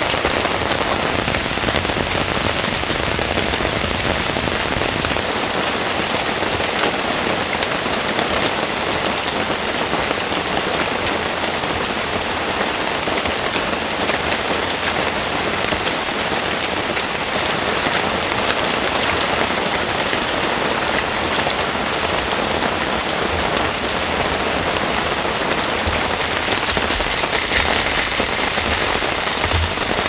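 Heavy rain falling steadily, with water streaming off a shelter roof's edge.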